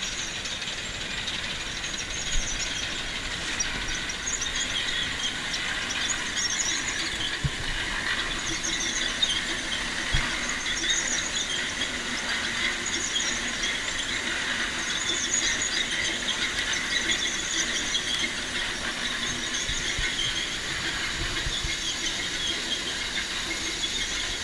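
Grain-cleaning and sorting machines running: a steady, high-pitched mechanical whine and hiss that flickers continuously, with a few faint knocks.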